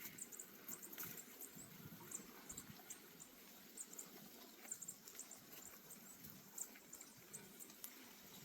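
Near silence: faint outdoor ambience with scattered short, high-pitched chirps.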